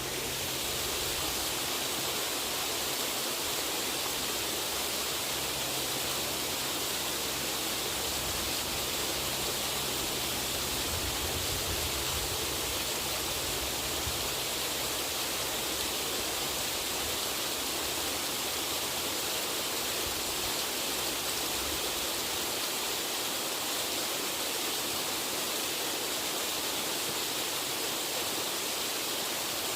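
Steady rushing of water pouring down a small waterfall off the back of a dam, a constant even hiss.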